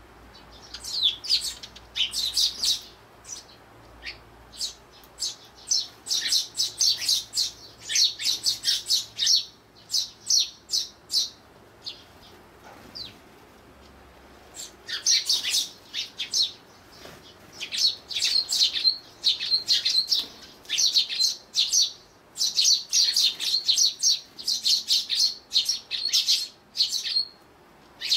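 Eurasian tree sparrows, young birds among them, chirping in quick runs of short, high calls, with a lull about halfway through.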